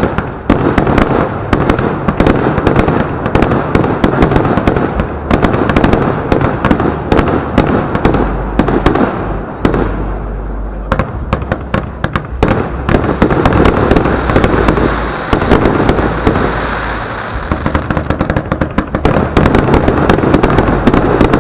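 Aerial fireworks display of large shells: a dense, continuous barrage of launch thumps and shell bursts in rapid succession. It thins out a little twice and grows denser again near the end.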